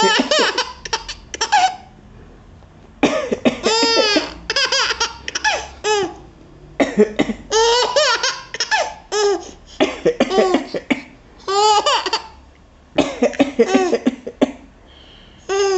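A baby of about six months laughing in repeated high-pitched bouts, each set off by an adult's coughs.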